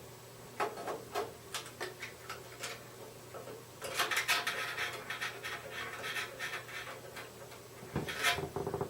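Handling noise from computer cables and connectors being plugged in: scattered clicks and knocks, with a longer stretch of rustling and scraping about four seconds in and a louder cluster of clicks near the end.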